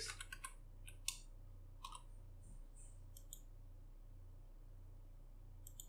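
Soft clicks of typing on a computer keyboard, a handful in the first three seconds or so, then near silence over a low steady hum.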